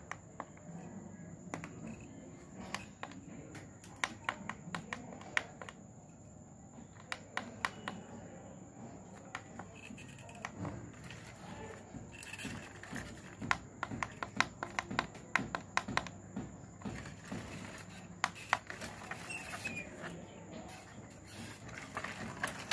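Plastic push buttons on a baby walker's musical toy panel clicking as they are pressed over and over, with no music sounding: the toy's music unit is not working.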